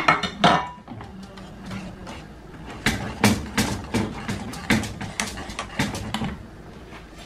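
Wire whisk knocking and scraping against the side of a metal pot while stirring thick chocolate pudding: a few clicks at the start, then a run of sharp taps about three a second for some three seconds.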